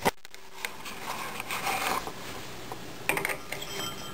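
Small clicks and scraping of a compact fluorescent spiral bulb being screwed into a ceiling fan light socket inside a glass shade, with a sharp click at the start and a few more clicks about three seconds in.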